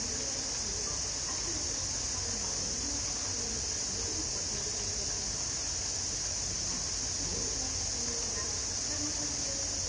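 Steady high-pitched insect buzz, with faint murmuring voices of people underneath.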